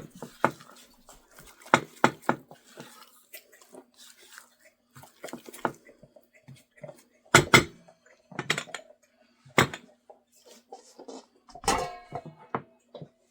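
A spoon knocking and scraping against a bowl in irregular strokes while stirring vanilla into a thick syrup, with a few louder clinks about halfway through and near the end.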